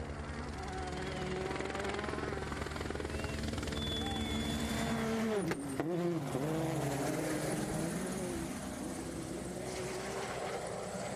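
Helicopter rotor chopping steadily overhead while a gravel rally car's engine passes. About halfway through, the engine note drops sharply, then rises and falls a few times as the car goes by.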